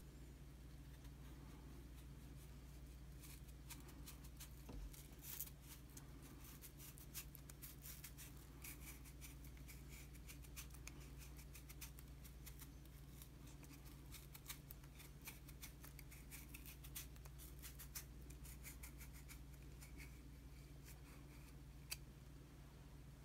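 Kitchen knife peeling the skin off a daikon radish in one thick band as the radish is turned against the blade, giving faint, scratchy crackles of the blade cutting crisp flesh.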